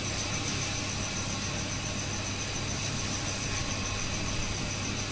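Steady mechanical hum under an even hiss, holding level without change.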